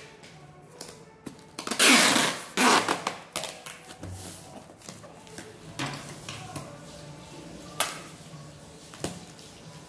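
Clear packing tape pulled off its roll in two loud rasping rips about two seconds in, then pressed onto a cardboard box with a few light knocks and rubbing.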